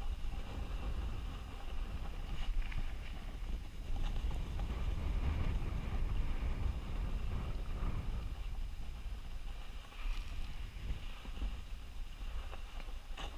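Wind buffeting a GoPro action camera's microphone while riding at speed down a groomed ski run, a steady rumble, with the hiss of snow sliding underneath.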